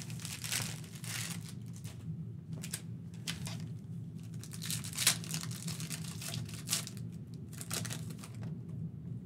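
Foil trading-card pack wrappers crinkling and tearing as packs are handled and opened, in irregular crackly bursts, over a steady low hum.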